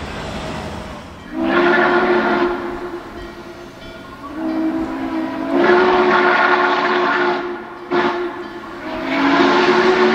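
Diesel locomotive's air horn sounding the grade-crossing signal: two long blasts, a short one and a final long one, each a chord of several notes held steady.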